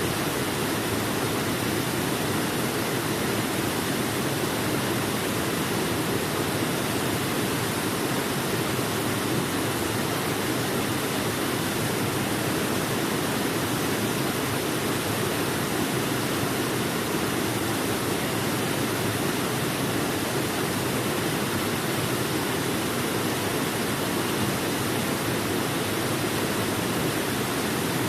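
Waterfall: a steady, unbroken rush of falling water, fullest in the low and middle range.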